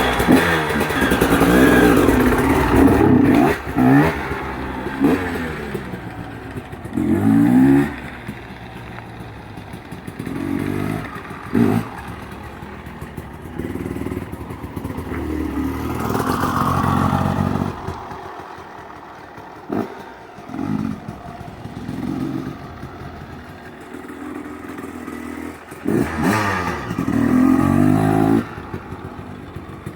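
KTM 250 XC two-stroke dirt bike engine being ridden, revving up in repeated bursts that rise in pitch and fall back between them.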